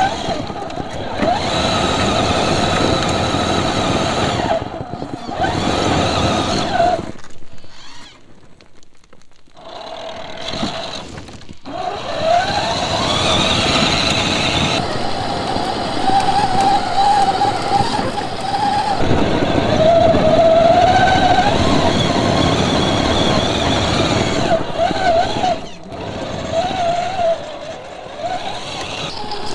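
A scale RC crawler's electric motor and gears whining as it climbs, the pitch wavering and rising with the throttle, over its tyres scrabbling in loose dirt. The sound breaks off a few times, with one quieter gap of about two seconds a third of the way in.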